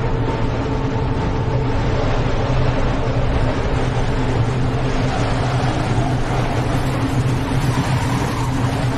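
Steady low droning rumble with a dense hiss over it, part of a dark haunted-house ambience track.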